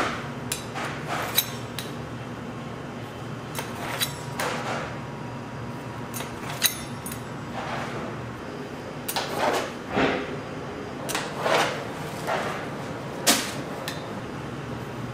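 Scattered knocks and clatters of equipment being handled in a bakery production room, busiest in the second half, over a steady machinery hum.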